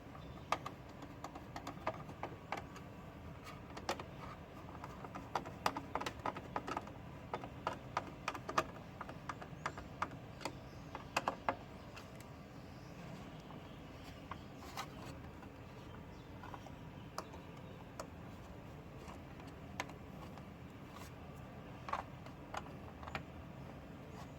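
Scattered light clicks and taps of washer panel parts and tools being handled during reassembly. They bunch up between about five and twelve seconds in and come again briefly near twenty-two seconds.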